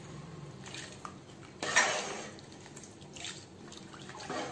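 A steel ladle stirring a watery mutton masala in an aluminium pot: the liquid sloshes in several short strokes, the loudest a little before halfway, with the ladle knocking against the pot.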